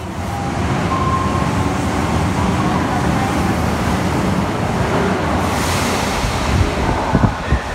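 Osaka Metro Tanimachi Line subway train running out of the station past the platform screen doors: a loud, steady rush and rumble. The hiss dies away near the end, leaving a few low thumps.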